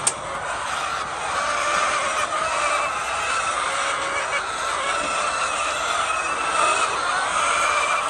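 Large flock of white laying hens clucking continuously, many calls overlapping into a dense chatter. There is one sharp click at the very start.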